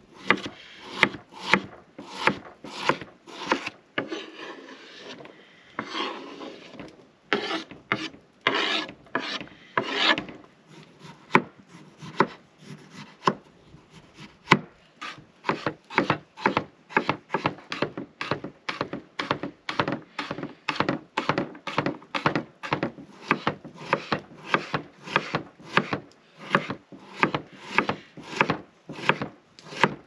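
Chef's knife dicing a potato on a wooden cutting board: steady chopping knocks about two a second, with some longer slicing strokes in the first third.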